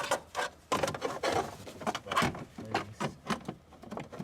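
An irregular run of short knocks and clatters, about a dozen in four seconds, as parts and tools are handled and set down.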